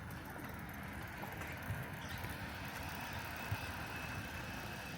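Town street ambience: a steady low rumble, with two brief knocks, the louder one about three and a half seconds in.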